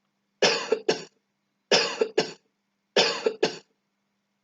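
A person's dry, unproductive cough, with no rattle of sputum. It comes in three bouts about a second and a quarter apart, each bout two short, sharp coughs.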